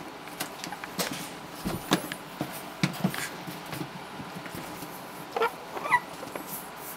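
Four-week-old Havanese puppies playing on a pad: scattered scrabbling and scuffing of small paws and bodies, with two short, high puppy whimpers about five and a half seconds in.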